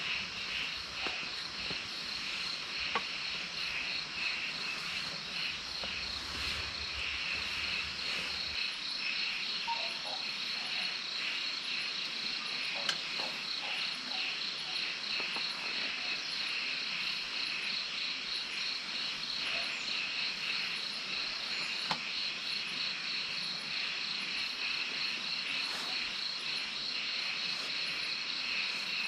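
Night insects chirping in a dense, steady chorus of fast even pulses, with a few faint clicks scattered through it.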